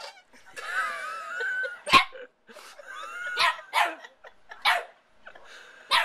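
Small dog giving a drawn-out wavering whine, then several short barks, with a sharp knock about two seconds in.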